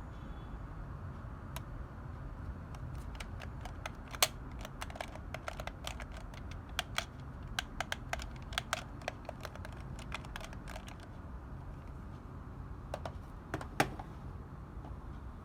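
Irregular light clicks and taps, a few sharper ones, over a steady low hum.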